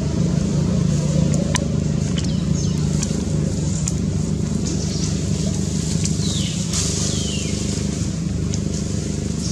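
Engine running steadily at idle, a constant low hum. A few short, high descending chirps sound about two and a half seconds in and again around six to seven seconds.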